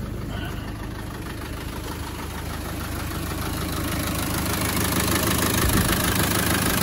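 Land Rover Defender 300Tdi 2.5-litre four-cylinder turbodiesel idling steadily while warm, with no odd noises in it. It gets louder from about two seconds in, then holds steady.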